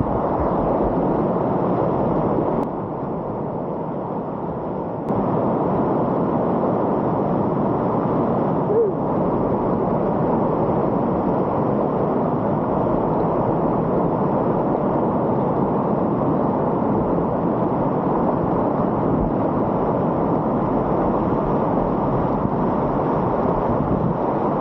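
Steady rushing of high-water whitewater on the Sill river, a dense unbroken roar of water, briefly quieter from about 3 to 5 seconds in.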